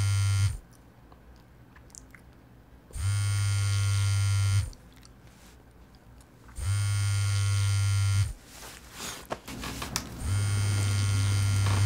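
Mobile phone vibrating with an incoming call: a low buzz in even pulses about a second and a half long, repeating about every four seconds, four buzzes in all. Brief rustling of someone stirring comes just before the last buzz.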